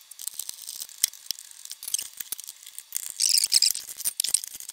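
Small clicks and scrapes of a screwdriver working the screws in a two-slice toaster's plastic base. About three seconds in comes a louder scraping rattle as the stainless-steel toaster is turned over and handled.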